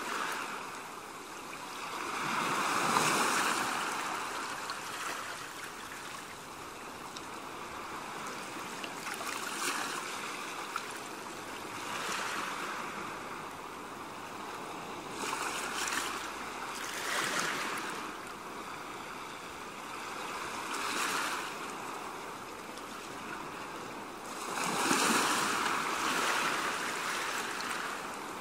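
Small waves washing onto a beach, a swell of surf every few seconds, the biggest ones about three seconds in and near the end.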